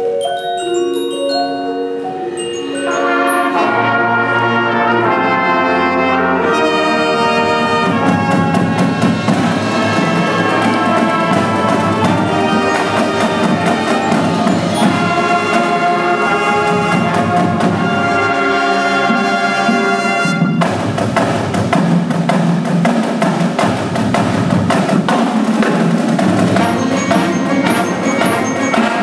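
High school marching band playing: marimbas and other mallet percussion open, then brass and saxophones join about three seconds in and the full band plays on. High bell-like mallet notes come back in near the end.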